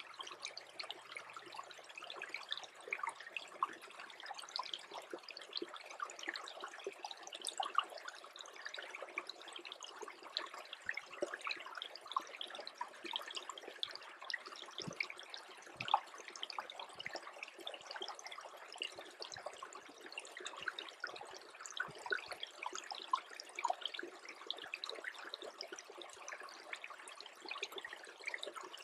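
A small brook that is freezing over, trickling steadily with a dense patter of tiny gurgles and pops.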